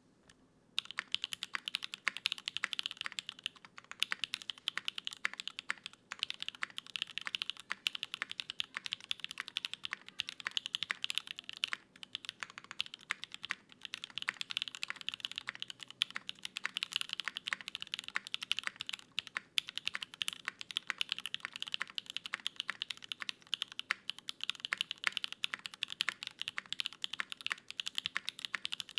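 Fast continuous typing on a gasket-mounted custom mechanical keyboard with an aluminium plate and no foam, fitted with lubed and filmed Gateron Cream Soda linear switches and GMK Sumi keycaps: a dense run of crisp keystroke clicks, with a few short pauses.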